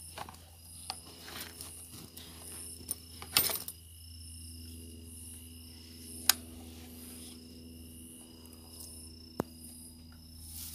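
Crickets chirping steadily in the dark, with a few sharp clicks about three and a half, six and nine seconds in; the one around six seconds is the loudest sound.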